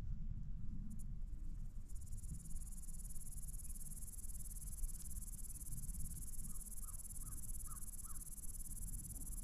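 A bird calling faintly, a quick run of about five short calls around two-thirds of the way through. Under it runs a low rumble, and a steady high hiss sets in about two seconds in.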